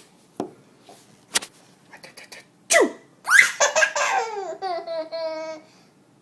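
A young child laughing, in a long run of laughter from about three seconds in, just after a short squeal that falls steeply in pitch.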